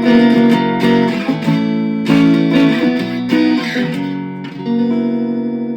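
Kramer electric guitar played through a BOSS Katana Mini amp with a clean tone: a handful of strummed chords, about one a second, each left to ring, the last one ringing out and slowly fading near the end.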